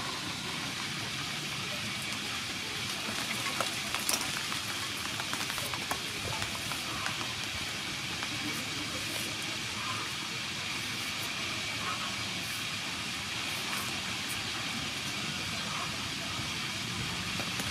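Vegetable peeler scraping strips off a cucumber, with small clicks and scrapes from the handling, over a steady hiss of background noise.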